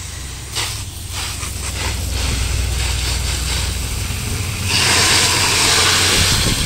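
Water jetting from a brass garden-hose nozzle and splashing against a Turbo 400 transmission's aluminium case as it is rinsed of degreaser and grime. The spray's hiss grows much louder about five seconds in and holds, over a low steady rumble.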